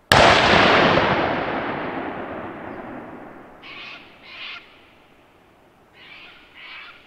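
A single rifle shot, its report rolling away in a long echo that fades over about three seconds. A few short, faint scratchy sounds follow, two about four seconds in and two more near the end.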